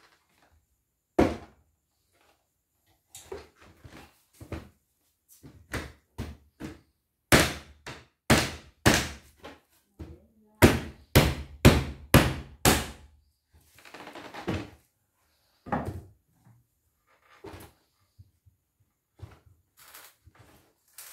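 Hammer striking a wooden shipping crate to knock its slats loose: scattered single knocks, then a quick run of three hard blows and then five more, with a short rasping scrape of wood about two-thirds of the way through.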